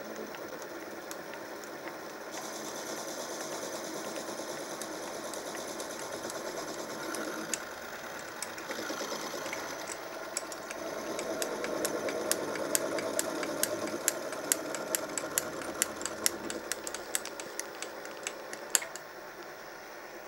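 Mini mill running with a 16 mm end mill taking a light finishing cut across the face of a brass bearing half. The cutting noise grows louder from about halfway, with a run of sharp ticks in the second half, the loudest one near the end.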